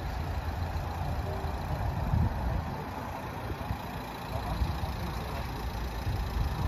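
Street ambience: a steady low rumble of traffic with an even background hiss.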